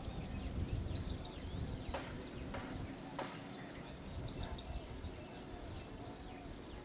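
Outdoor background: a low wind rumble on the microphone, with faint high bird chirps and a few faint taps.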